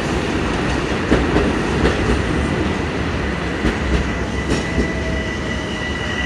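Commuter train running on the rails: a steady low rumble with wheels clicking over rail joints and a steady high-pitched whine.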